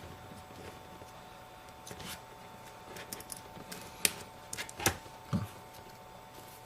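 Small sharp clicks and taps from handling a phone's parts and tools while a ribbon-cable connector is fitted back onto an iPhone 5S logic board, the clearest about four and five seconds in, over a faint steady hum.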